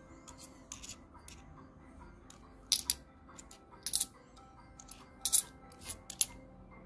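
2-euro coins clinking against each other as they are slid off a stack held in the hand, one at a time, with sharp metallic clicks about once a second. Faint background music runs underneath.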